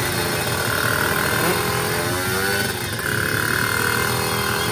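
Drag-race motorcycle engine held at high revs at the start line, its pitch wavering up and down as the throttle is worked before launch.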